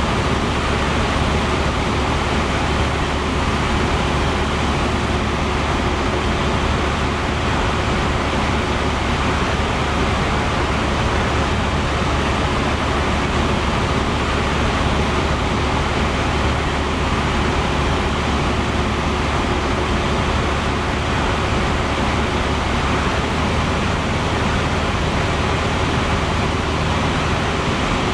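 Cessna 172's piston engine and propeller droning steadily in cruise, heard inside the cockpit.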